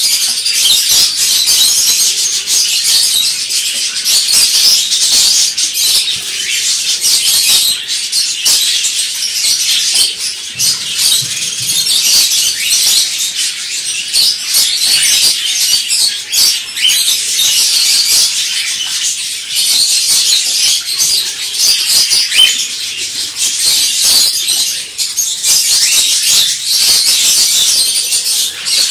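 Many small caged songbirds in an aviary chirping and calling together, a dense, unbroken chatter of high chirps.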